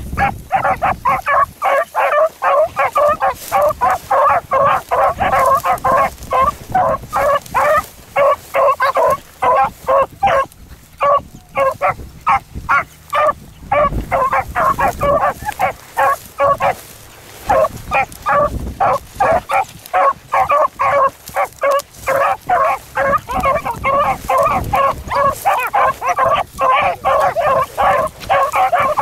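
Beagles baying in rapid, overlapping barks, several a second, while running a rabbit's scent trail. They ease off briefly twice and then pick back up.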